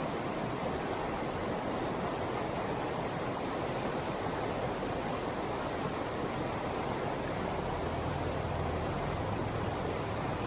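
Small river flowing: a steady rushing and burbling of water.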